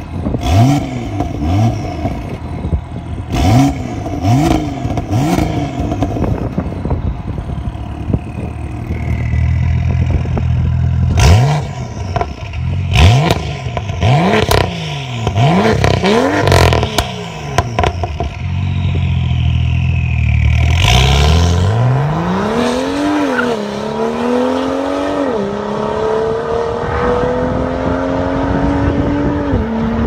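BMW M2 turbocharged straight-six through a Fi Exhaust catless downpipe and valved catback, blipped in quick revs about once a second with the exhaust valves closed. With the valves open it is revved harder, with sharp cracks among the revs. Then it accelerates away, the pitch climbing and dropping sharply at each of three upshifts.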